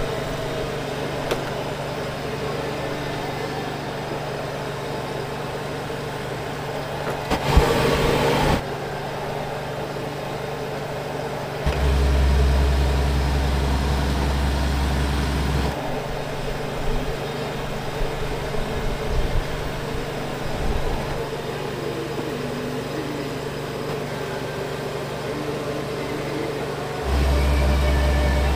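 A steady mechanical hum, with a deep motor drone that switches on for about four seconds near the middle and again near the end. A brief louder noisy burst comes about eight seconds in.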